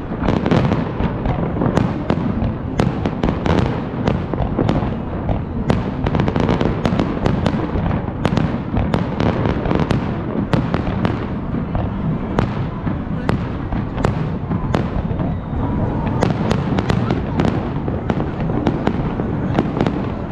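Aerial fireworks display: a continuous barrage of sharp bangs and crackles from bursting shells, several reports a second without a break.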